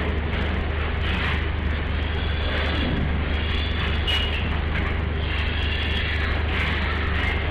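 Steady low hum and rushing mechanical noise of a farrowing shed, with a sharp knock at the start and another about four seconds in.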